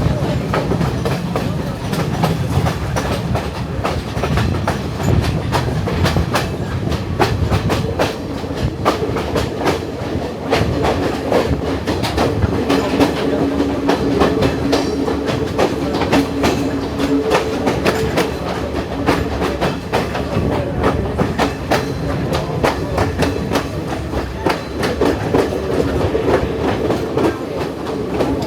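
Passenger train running on the hill-country line, heard from on board: steady rolling noise, with the wheels clattering over rail joints in many quick clicks.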